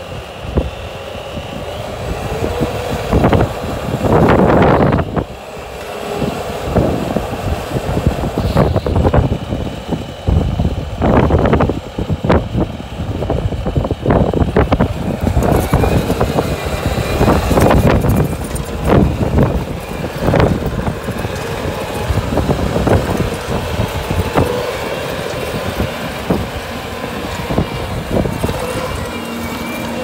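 Bobcat compact track loader's diesel engine running as the machine drives and works dirt, with a steady mechanical whine under it. Loud, irregular rushes of noise break in repeatedly, the strongest about four seconds in and again around the middle.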